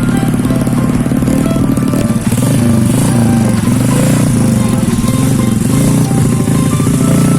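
Modified Suzuki Smash 110's single-cylinder four-stroke engine running as the motorcycle is ridden, its pitch wavering up and down from about two seconds in.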